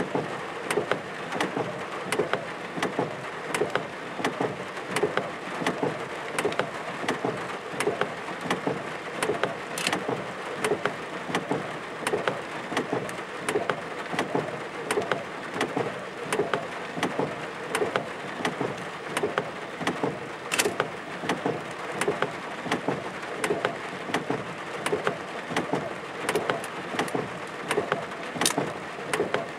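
Thunderstorm rain falling steadily, with a dense run of sharp, irregular taps from drops striking a nearby surface; no thunder is heard.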